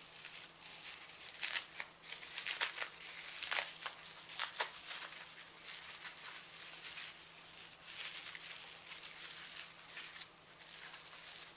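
Pink plastic bubble-wrap packaging being unwrapped and handled by hand, crinkling and rustling with sharp crackles. The crackles are busiest in the first five seconds and thin out after that.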